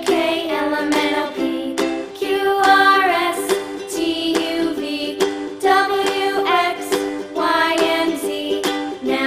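Background music: a children's song, a voice singing a melody over an instrumental accompaniment.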